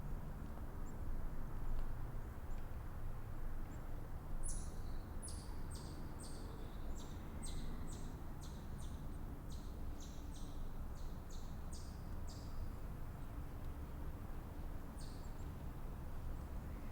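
Outdoor ambience: a steady low rumble, with a small bird giving a quick run of short, high chirps starting about four seconds in and lasting some eight seconds, then one more chirp near the end.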